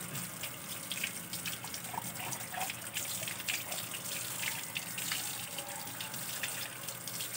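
Water from a garden hose running over a wet dog's coat and splashing onto a concrete floor: a steady hiss of flowing water with small irregular splashes and drips.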